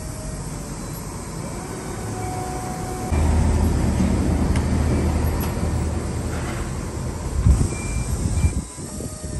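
Forklift working while carrying a pallet load: a steady low hum that gets much louder about three seconds in as the truck works under load, with a few short high beeps and some knocks near the end.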